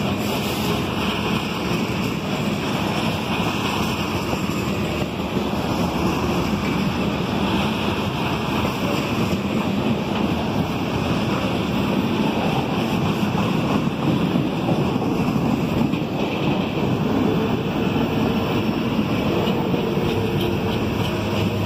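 Mixed freight train cars (tank cars, covered hoppers, boxcars) rolling past close by: a steady rumble of steel wheels on the rails.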